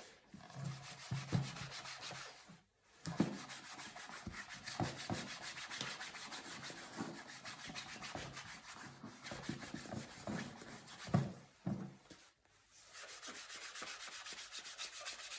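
A cloth rubbing over a leather bike saddle (an Ideale 92), buffing off leather cream, in continuous wiping strokes. There are brief pauses about two and a half seconds in and about twelve seconds in, and a few light knocks as the saddle is handled.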